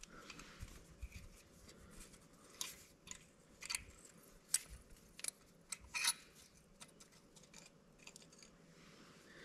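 A hand tap cutting 1/4-20 threads into the aluminum engine case's starter mounting hole, giving faint, irregular clicks and crunches as it turns. The stripped metric starter-bolt threads are being stepped up to a standard size.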